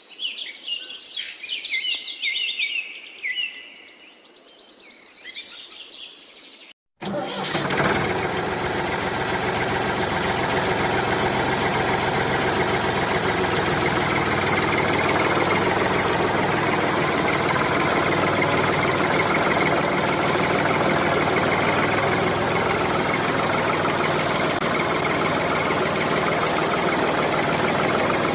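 Birds chirp for the first several seconds; then, after a brief cut about seven seconds in, an engine runs steadily and loudly for the rest.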